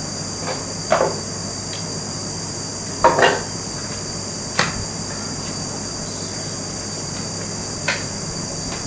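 Spin mop's plastic head knocking on a tiled floor: a few short sharp knocks, the loudest a double knock about three seconds in, over a steady high-pitched hiss.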